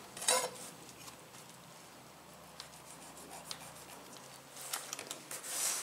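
Kitchen knife paring the skin off an avocado on a plastic cutting board: a short scrape just after the start, a few faint taps, then several clicks and a longer scrape of the blade near the end.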